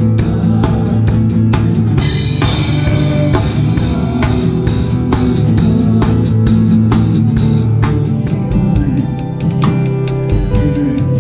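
Worship band music led by a drum kit playing a steady beat of kick and snare under bass and guitar, with a cymbal crash about two seconds in.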